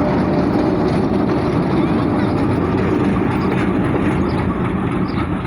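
Train passing at speed behind a locomotive: a steady loud rumble and rattle of wheels on the track, easing off slightly near the end.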